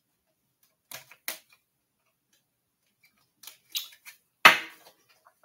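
A few short, sharp clicks and taps, then a louder knock about four and a half seconds in: trading card packs and cards being handled and set down on a table.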